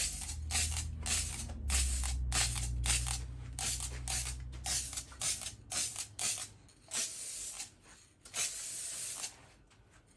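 Rust-Oleum Universal gloss clear aerosol can spraying in a run of short hissing bursts, about two a second, then two longer bursts about seven and eight and a half seconds in. A low hum sits underneath for the first six seconds.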